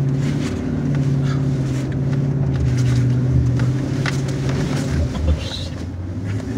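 Four-wheel-drive truck engine running steadily under load, heard from inside the cab, with scattered short knocks and rattles. The engine's steady hum drops away about five seconds in.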